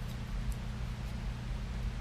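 Fanimation Windpointe ceiling fan running: a steady low hum with an even hiss of moving air.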